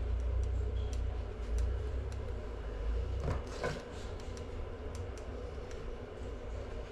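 Caulk gun being worked along a shower door's bottom track: a few faint clicks and handling sounds over a low rumble that fades about three seconds in.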